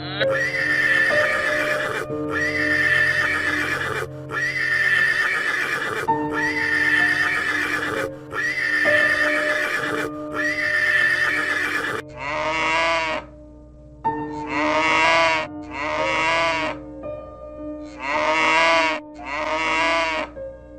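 Farm-animal calls repeated over steady background music: six long calls about two seconds apart, then, after an edit, a different recording of shorter calls that fall in pitch.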